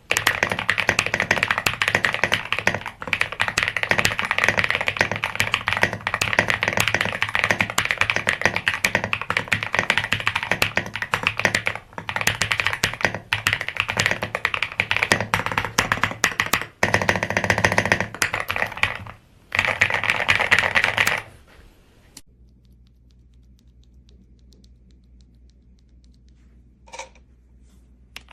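Fast, continuous typing on a mechanical keyboard, with a few short pauses. It stops about three quarters of the way through, leaving a faint low hum and one light click near the end.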